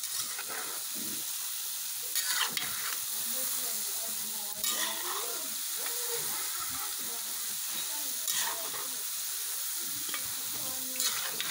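Small dough pieces deep-frying in hot oil with a steady sizzle, while a spatula stirs them around the metal pan, making about five louder stirring strokes.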